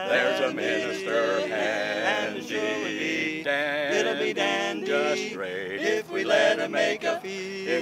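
A barbershop quartet of four male voices singing a cappella in close harmony, the voices shifting together from chord to chord.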